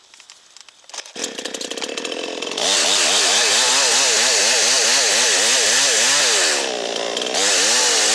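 Chainsaw starting about a second in and running roughly at low speed. It is then revved hard, with its pitch wavering up and down, backs off briefly near the end and is revved again. It is being run free to sling excess bar oil off the bar and chain.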